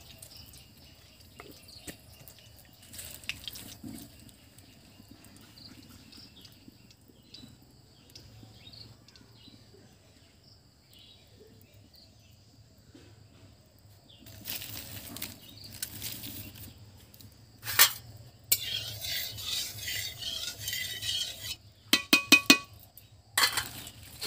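Stainless-steel plates, bowls and utensils clinking and scraping as they are handled. It is faint at first, then comes in several bursts of clatter from about halfway through, with a sharp clink and a quick run of ringing taps near the end.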